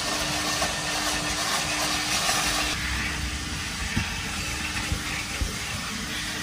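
Self-service car wash equipment running: a steady hiss with a constant hum under it and a few light knocks, easing slightly about three seconds in.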